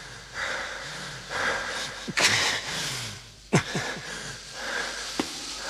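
Noisy, hoarse breathing in several drawn-out breaths, with a sharp knock about three and a half seconds in and a lighter click near the end.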